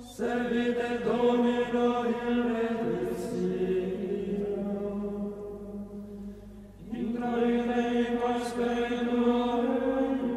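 Chanted vocal music: voices singing long held notes over a steady low drone. A new phrase begins about seven seconds in.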